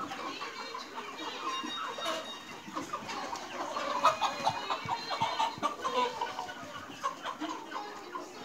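A large flock of hens clucking and calling over one another, many short overlapping calls with no pause, loudest about four seconds in.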